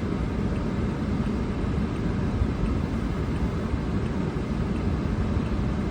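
Steady road and engine noise inside a moving car: an even, low rumble with no sudden events.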